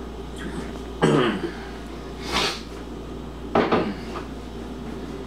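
Three short knocks and clatters of kitchen handling, about a second, two and a half and three and a half seconds in, as a plastic drink pitcher is set down and put away in the refrigerator.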